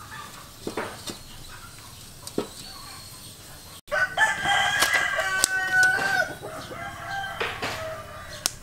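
A rooster crows once, a long pitched call starting about four seconds in, the loudest sound here. Before it come a few light clinks and knocks as the aluminium steamer pot is handled.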